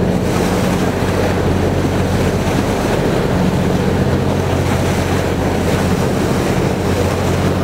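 A boat's engine running steadily with a low hum, under wind on the microphone and the rush of water past the hull.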